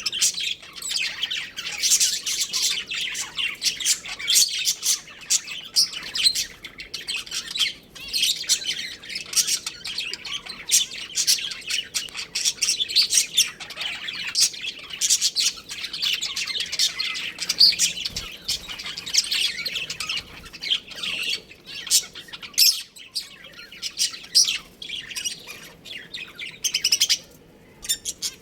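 Budgerigars chirping and chattering, many short, high calls overlapping without a pause.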